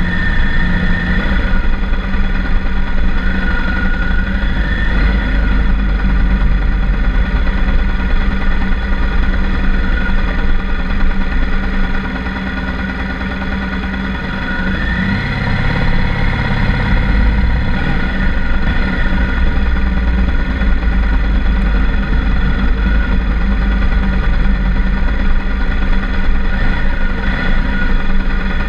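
BMW R1200GS Adventure's boxer-twin engine running steadily at low road speed, heard through a bike-mounted GoPro. It eases off about twelve seconds in and picks up again with a short rise in pitch a few seconds later.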